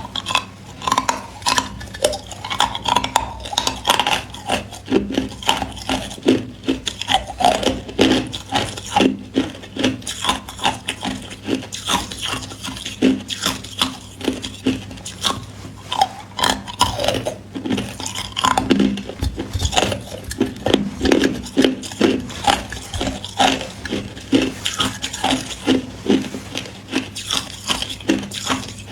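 Hard clear ice being bitten and chewed close to the microphone: a steady run of sharp, irregular crunches and crackles, several a second.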